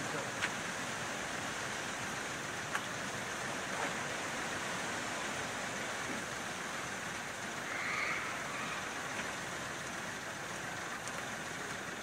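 A steady, even hiss of outdoor noise, with a few short, faint knocks and rustles as bundles of empty sandbags are thrown onto a kei truck's bed.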